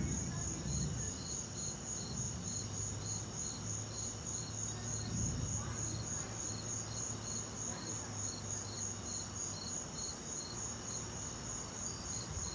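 Crickets chirping in a steady chorus: one high, fast pulsing trill over a slower, regular chirp. A faint low hum runs underneath and stops about ten seconds in.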